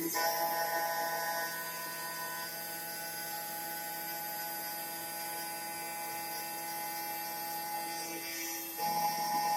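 CNC milling machine running as it machines 3D-printer plates: a steady whine of several fixed tones, which grows louder and shifts in pitch just after the start and again about nine seconds in.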